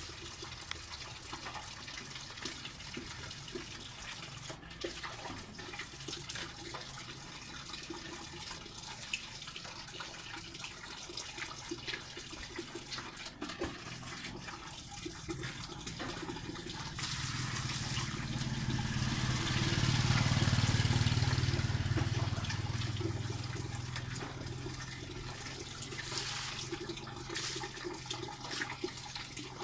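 Steady rush of rain water falling and running, with scattered small knocks. A low hum swells up about two-thirds of the way through and fades again a few seconds later.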